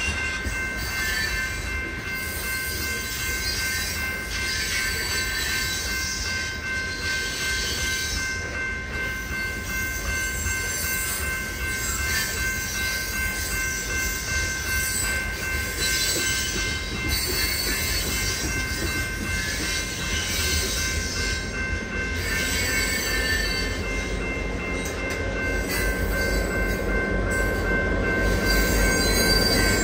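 A freight train's cars rolling steadily past a grade crossing, with a steady high wheel squeal. Over the last few seconds the deeper rumble of trailing BNSF diesel locomotives grows louder as they approach.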